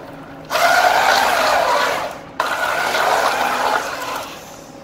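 Drive motors and gearboxes of an FRC robot chassis whining as it drives across a concrete floor, the pitch wavering with speed. It starts about half a second in, cuts out briefly around two seconds, runs again, then dies down near the end.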